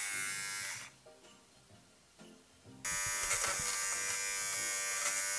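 Battery nose-hair trimmer buzzing for about a second, then after a short pause running again with a steady high buzz for about three seconds while trimming nose hair.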